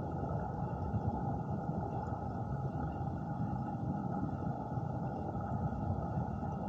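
Steady, muffled rush of water recorded underwater, dull and low with no sharp sounds.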